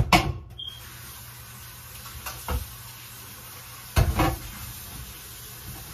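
Kitchen faucet running a steady stream into a metal sink while squash is rinsed in a pan, with several knocks and clunks of the pan against the sink, the loudest at the start and about four seconds in.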